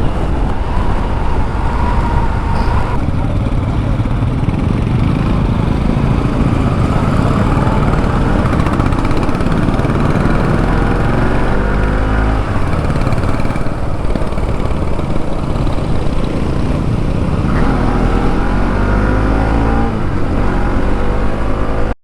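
Motorcycle engine running at road speed, with heavy wind rumble on the rider's microphone; the engine pitch rises and falls several times in the second half.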